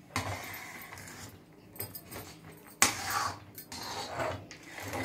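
Steel ladle stirring thick jaggery syrup in a steel kadhai, with soft scraping and one sharp metal clink about three seconds in.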